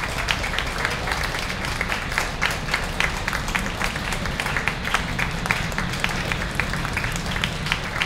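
A group of people applauding, many hands clapping in a dense, uneven patter. A steady low rumble runs underneath.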